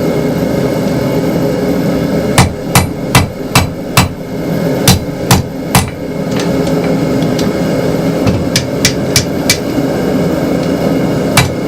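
Blacksmith's hammer striking hot 3/8-inch square steel stock on an anvil while upsetting the corner of a 90-degree bend to square it up. It comes in runs of blows: five quick strikes, then three more, then four lighter taps, and a single blow near the end, over a steady hum.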